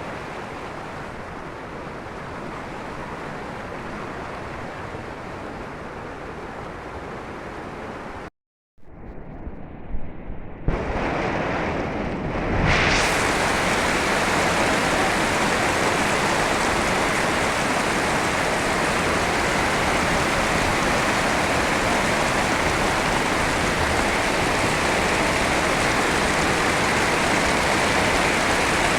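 Heavy rain falling as a steady hiss. It cuts out for a moment about eight seconds in, comes back softer with a few knocks, and from about thirteen seconds in it is louder and brighter.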